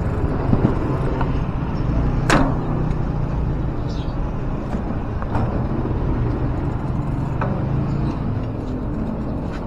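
Steady low rumble of a bicycle rolling along a concrete alley, with a brief sharp sound about two seconds in.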